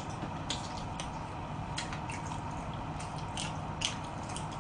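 Wet chewing and lip-smacking of a man eating jokbal (braised pig's trotters) close to the microphone: irregular short smacks and clicks, a few a second, over a low steady hum.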